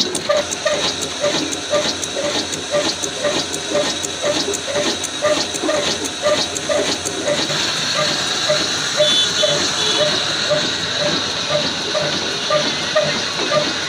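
Old single-cylinder black diesel engine running at a slow, even chug of about two and a half beats a second, with a hiss over it. Sharp ticks with each beat fade out about halfway.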